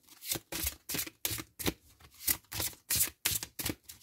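A deck of oracle cards being overhand-shuffled by hand: quick papery swishes as packets of cards slide from one hand to the other, about three a second.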